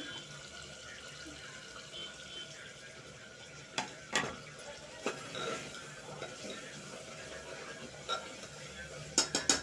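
A spoon stirring browned mutton in an open aluminium pressure cooker, scraping and knocking on the metal with a few sharp clinks and a quick cluster of them near the end, over a faint steady sizzle.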